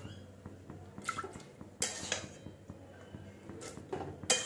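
Metal utensil scraping and clinking against a pan as a fried dal-and-vegetable mixture is tipped out into an aluminium pressure cooker. There are a few separate clinks and scrapes, the loudest near the end.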